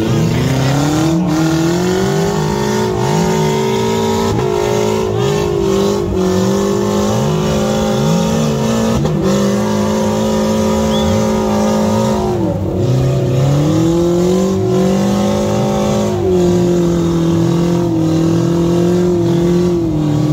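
Off-road 4x4 engines revving hard and held at high revs while the wheels spin in deep mud, the revs dropping briefly and climbing again several times.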